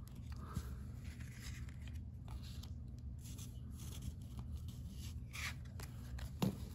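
Pokémon trading cards being handled: soft rubs and light ticks as cards slide over one another, and one is laid down on a cloth playmat, over a steady low hum. There is a sharper tick near the end.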